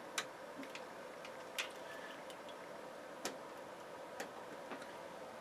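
Five short, sharp clicks, irregularly spaced, from the buttons and knobs of bench test equipment being worked. A faint steady electrical hum runs underneath.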